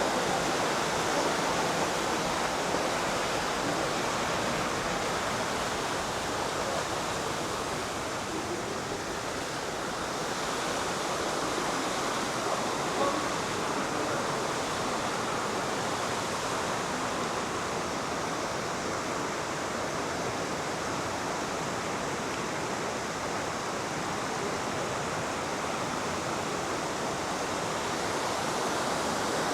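Steady rushing of a mountain river, the Nippara River, flowing through its rocky gorge.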